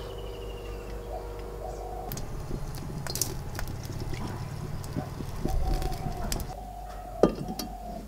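Wood fire crackling under a cast-iron pan on a clay hearth, with scattered small clicks and a single sharp knock about seven seconds in. Birds call in the background.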